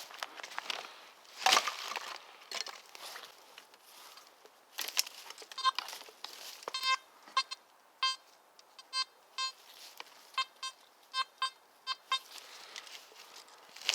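Crunching and rustling of forest leaf litter, loudest about a second and a half in, then about a dozen short, high beeps in irregular bunches from a metal detector signalling a buried target.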